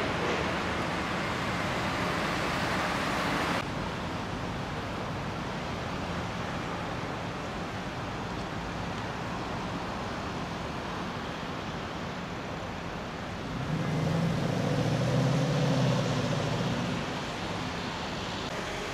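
Road traffic: cars driving along a multi-lane city street, then a steadier, quieter traffic hum. Near the end a louder, low engine sound swells and fades as a heavier vehicle passes.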